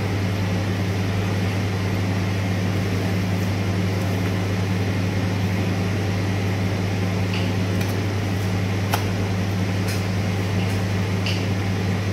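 Steady low mechanical hum of a running kitchen machine, with a few faint clicks in the second half as a chef's knife trims beef tenderloin on a plastic cutting board.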